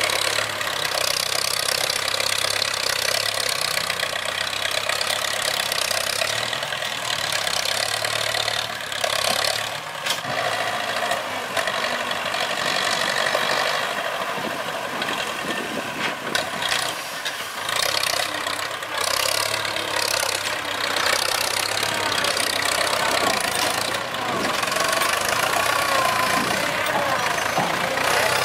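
Diesel engine of a tractor-mounted log grapple loader running steadily with a knocking clatter while the machine drives and lifts rubberwood logs.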